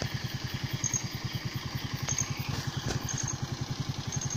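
An engine idling, a steady rapid low throb.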